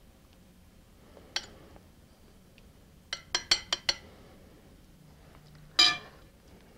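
A metal spoon clinking against a stainless steel ring mold: one tap, then five quick taps about three seconds in, as tartare is pressed into the ring. Near the end, one louder, ringing clink of the spoon against a glass mixing bowl.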